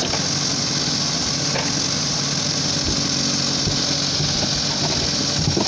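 JCB 3DX backhoe loader's diesel engine running steadily as the backhoe arm hoists a plastic septic tank out of the pit on straps.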